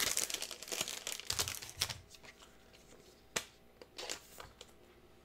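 Foil Pokémon booster pack wrapper crinkling as it is handled and crumpled, followed by a few sharp clicks from cards or packs being set down.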